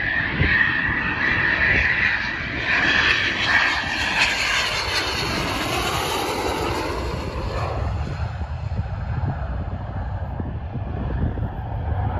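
Eurofighter Typhoon's twin Eurojet EJ200 turbofans on a low, gear-down approach: a high whine over a rushing jet noise that grows as the aircraft passes close by, loudest a few seconds in, then easing away.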